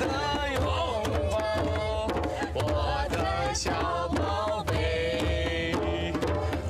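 A cheerful sung song over a lively beat of hand drums.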